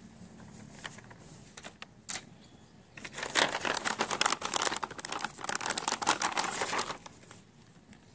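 Clear plastic packaging crinkling as hands rummage in it for about four seconds, after a few light taps.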